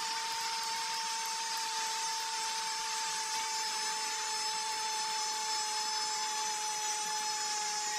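A television football commentator's long, unbroken shout of 'gol' at a steady high pitch that sinks slightly, over steady stadium crowd noise, for Argentina's second goal.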